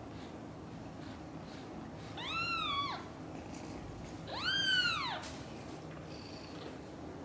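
British shorthair kitten meowing twice, two high-pitched calls a couple of seconds apart, each rising and then falling in pitch.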